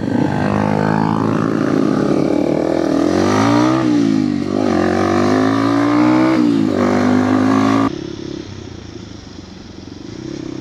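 Motorcycle engine pulling under acceleration while riding, its pitch climbing and dropping back at gear changes, about four seconds in and again near seven seconds. At about eight seconds it falls suddenly to a quieter, steady hum.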